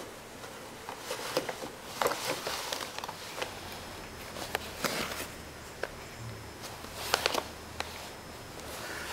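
Cat pawing, scratching and pushing into a cardboard shirt box on carpet: irregular scraping, rustling and clicking of the box, in louder bursts every second or two.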